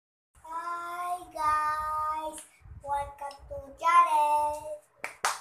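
A young boy singing a short tune in three phrases of long held notes, then sharp hand claps near the end.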